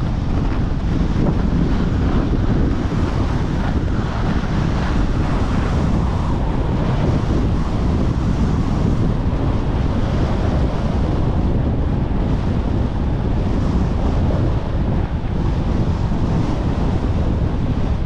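Steady wind buffeting a GoPro HERO11's microphone while skiing downhill: a dense, unbroken rumble with hiss above it.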